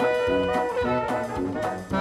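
Upbeat jazzy background music led by brass horns over a steady drum beat.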